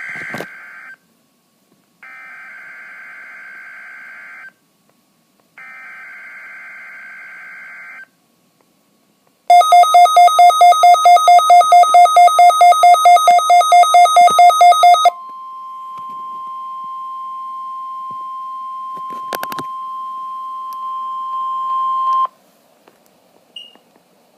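Emergency Alert System required weekly test tones: three bursts of the buzzy SAME digital header, then a very loud pulsing electronic alert tone, about four pulses a second for some five seconds. Then the steady NOAA Weather Radio warning tone holds for about seven seconds, with a click partway through, and cuts off abruptly.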